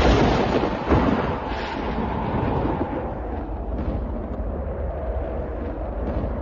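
Thunder: a loud crack right at the start and a second one about a second in, then a long rolling rumble over a steady rush of storm wind.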